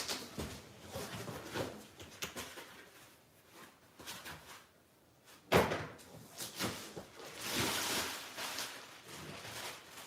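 Cardboard box and packaging being handled and pulled apart, with scattered knocks, one loud thump about five and a half seconds in, and a stretch of scraping and rustling a couple of seconds later.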